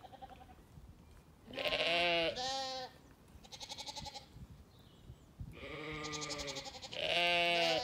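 Zwartbles sheep bleating several times, quavering calls. The loudest come about a second and a half in and again near the end, with fainter ones between.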